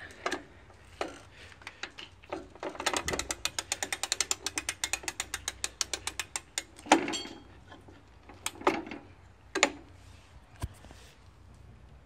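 Ratcheting mechanism on a 1968 Victa Cortina 2 125cc two-stroke lawnmower: a fast, even run of clicks, about ten a second, lasting about four seconds, then a few separate knocks, the loudest about seven seconds in. The engine does not fire.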